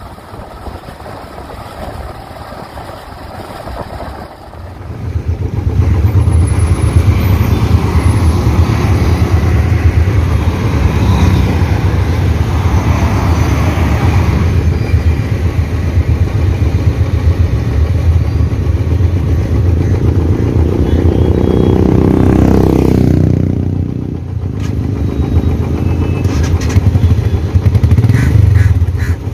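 Motorcycle engine running while riding, quieter at first and much louder from about five seconds in, with a brief drop a little before the end.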